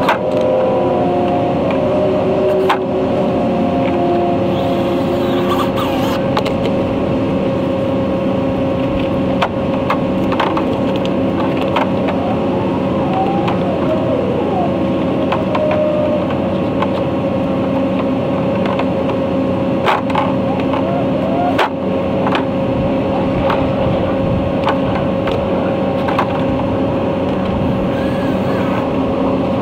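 A steady motor drone holding one pitch throughout, with a few sharp clicks and knocks scattered over it.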